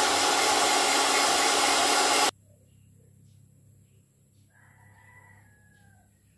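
Handheld hair dryer blowing loudly and steadily, cutting off abruptly a little over two seconds in. A rooster crows faintly about five seconds in.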